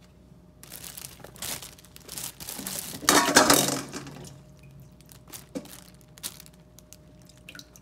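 Plastic oven bag crinkling and rustling as it is handled, loudest for about a second some three seconds in, then a few light rustles and clicks.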